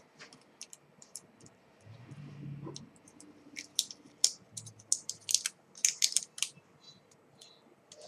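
Irregular crackling clicks of adhesive tape being pulled and pressed down to hold an IC socket on a circuit board, with a brief low handling rumble about two seconds in.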